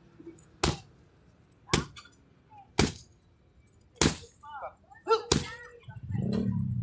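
Five sharp slaps of kicks striking a handheld kick pad, about one a second, with a couple of short cries between the last strikes. Music comes in near the end.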